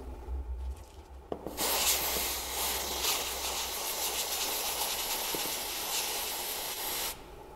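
MOTIP Freezer aerosol cold spray hissing steadily through its straw nozzle onto an alternator rotor's shaft and slip rings, starting about a second and a half in and cutting off suddenly near the end.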